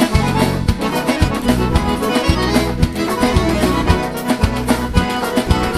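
Instrumental break of a Brazilian sertanejo dance song: accordion leading the melody over a steady bass-and-guitar beat.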